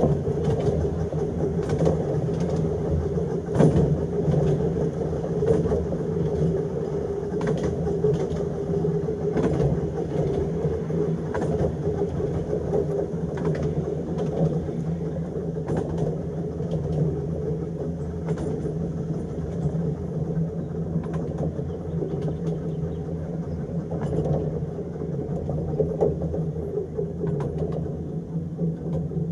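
Electric tram running along its narrow-gauge track: a steady hum from the motors and gearing over the rumble of wheels on rails, with a knock from the rail joints roughly every two seconds.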